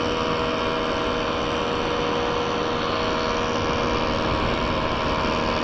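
Motorcycle engine running at a steady cruising speed while riding, with a constant drone and wind noise.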